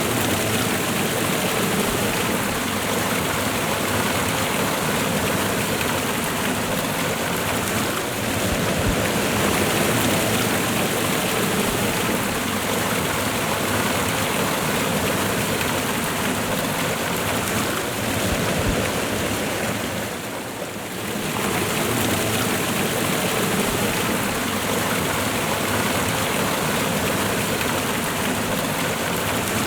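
Waterfall and river water rushing steadily, with a brief dip in level about twenty seconds in.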